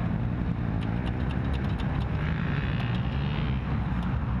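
Steady drone of other ATV engines running in the background, with a run of light mechanical clicks between about one and three seconds in.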